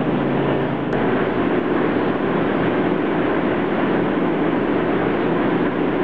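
A steady, even mechanical drone with a low hum underneath it, unchanging in loudness throughout, with a faint click about a second in.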